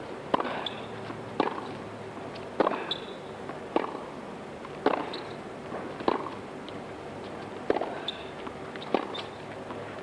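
Tennis ball struck back and forth by racquets in a hard-hitting baseline rally, a sharp pock roughly every second and a bit, about eight strokes in all.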